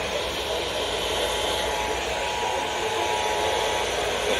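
Radio static: a steady hiss from weak reception, with a faint two-tone Emergency Alert System attention signal under it that cuts off near the end.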